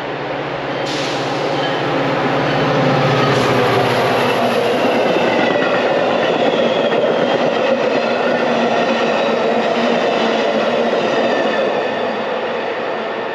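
Metra commuter train rolling past at close range as it pulls into the station: a loud, steady rumble of wheels on rail that builds over the first few seconds, with thin high-pitched squealing tones from the wheels and brakes as it slows.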